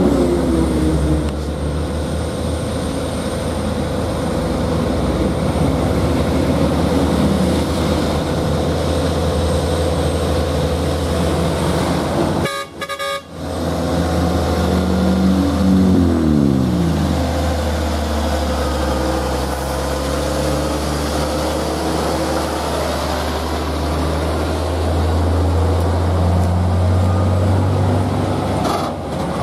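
Diesel engine of a FAW JH6 tractor unit pulling a heavily loaded lowbed trailer, a steady low drone. The sound cuts out briefly a little under halfway; soon after, the engine's pitch falls.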